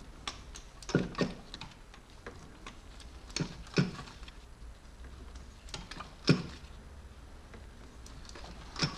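Torque wrench on the water pump bolts: scattered sharp metallic clicks at irregular intervals, about eight of them, with the loudest a little past six seconds in.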